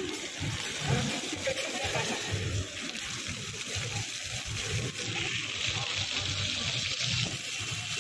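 Ground-level plaza fountain jets spraying and splashing onto wet paving: a steady hiss of water that swells for a couple of seconds in the second half.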